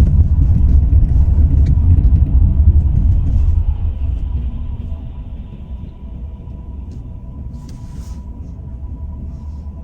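Car driving, heard from inside the cabin: a heavy low rumble of engine and road noise, loudest for the first few seconds and then easing off.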